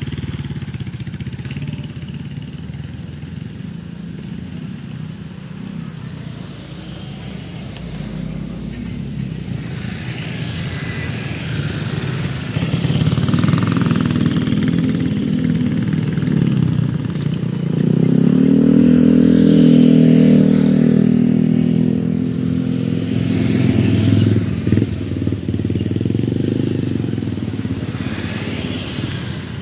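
Motorcycles and cars passing close by, engines running. The loudest pass, an engine speeding up with a rising pitch, comes a little past the middle.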